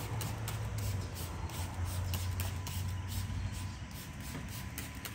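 Hand trigger spray bottle of water-based dressing squirted over and over onto engine-bay plastics, about two to three short sprays a second, over a steady low hum.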